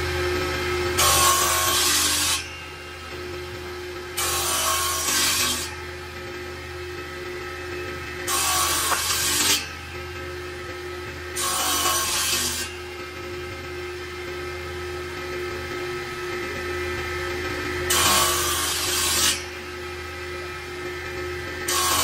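Woodworking power tool running with a steady hum, cutting into wood in five passes of just over a second each, a few seconds apart, with another pass starting at the very end.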